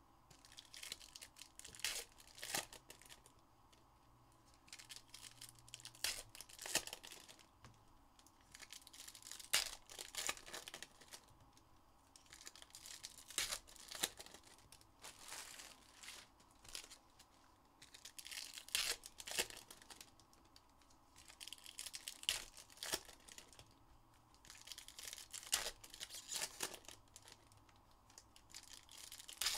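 Foil wrappers of Topps Formula 1 trading-card packs being torn open and crinkled by hand, pack after pack. The crackle comes in short bouts about every three to four seconds.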